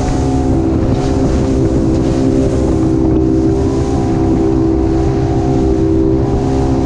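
Center-console motorboat running steadily at cruising speed: an even engine drone with a few held tones, over the rush of water along the hull and wind on the microphone.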